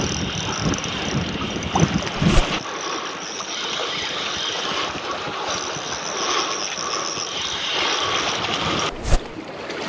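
Sea water washing and sloshing against shoreline rocks, with wind rumbling on the microphone for the first couple of seconds. Two sharp knocks cut through, one about two and a half seconds in and one near the end.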